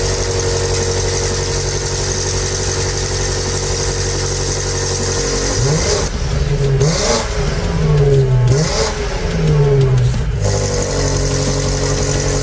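BMW G90 M5's twin-turbo V8 exhaust idling steadily, then blipped about four times in quick succession around the middle before settling back to idle.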